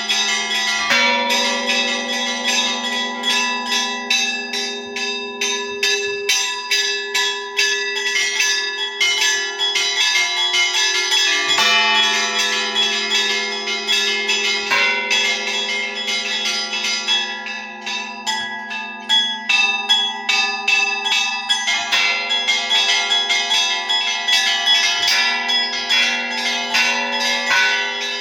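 Orthodox church bells ringing in a festive Easter peal. Rapid, rhythmic strikes on small high bells ring over deeper bells that hum on steadily, and the pattern changes several times.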